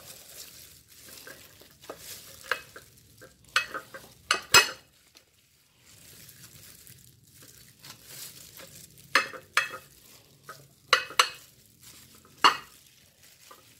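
Large kitchen knife cutting a Cayenne pineapple into wedges on a ceramic plate: sharp crunches and knocks in irregular clusters as the blade splits the fruit and meets the plate.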